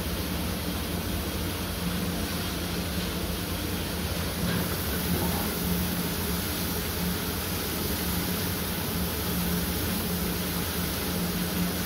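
Coffee roasting machine running: a steady rushing noise with a constant low hum, with no changes.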